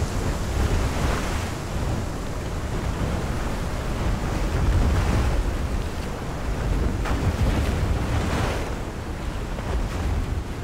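Storm-surge floodwater rushing and churning with wind: a continuous heavy rumble of surging water that swells and eases a few times.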